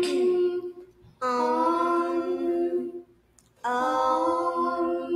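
Two girls' voices chanting a meditation tone in long, steady held notes, each about two seconds, with short breaks for breath between them.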